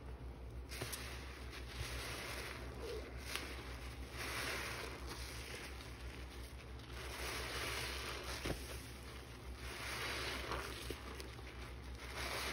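A soap-soaked sea sponge is squeezed and kneaded in a sink of thick suds, giving wet squishing and crackling of foam. There are about four squeezes, each a swell lasting roughly a second, spaced about three seconds apart.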